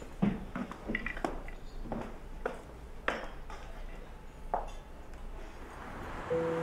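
Chopsticks clinking against small ceramic plates as someone eats: a string of light, irregularly spaced clinks. Music comes in just at the end.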